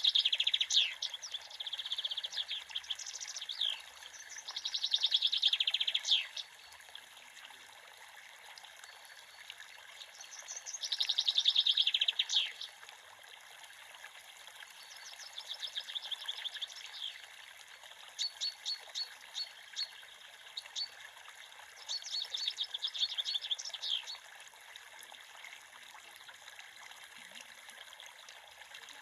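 Creek water running with a steady rushing trickle, while a small songbird sings short rapid trilled phrases in repeated bursts, about seven of them, before falling silent for the last few seconds.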